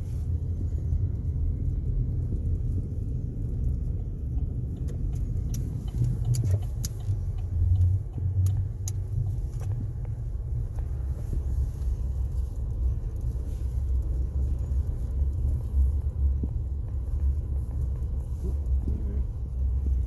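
Car driving over a snow-covered road, heard from inside the cabin: a steady low rumble of engine and tyres, with a few faint ticks about six seconds in.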